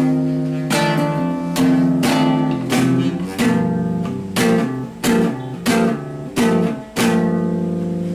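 Acoustic guitar strummed chords, one stroke every half second or so, closing out a song. The last chord is struck about seven seconds in and left to ring.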